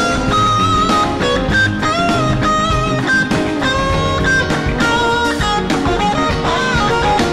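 Live band (electric guitars, bass guitar, keyboards and drum kit) playing an instrumental funk jam, with a lead line of single held notes, slides and bends over the rhythm section.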